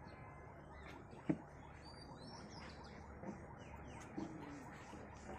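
Faint outdoor background with a single sharp knock about a second in, followed by a few faint, high squeaky chirps.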